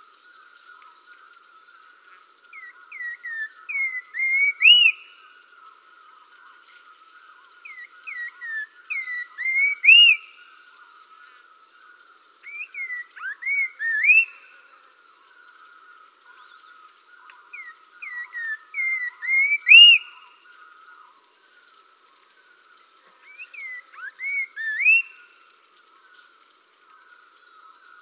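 Birdsong: a bird repeats a short whistled phrase about every five seconds, a few quick notes ending in a loud upswept whistle. A steady buzzing trill runs underneath.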